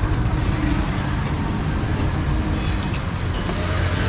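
Street traffic ambience: a steady low rumble of motor vehicle engines running nearby, with occasional faint clicks and clatter over it.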